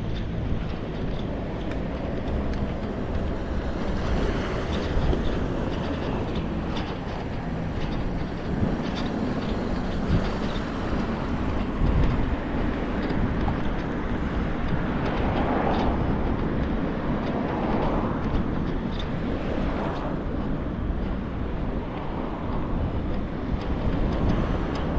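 Road traffic: cars driving past on the street, a steady wash of engine and tyre noise with a few passing cars standing out in the second half.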